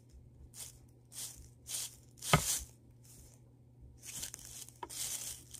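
A string of short rustling, scuffing bursts from a soft fabric hand puppet being moved about against the camera and its microphone. The loudest is about two and a half seconds in, and a cluster comes near the end.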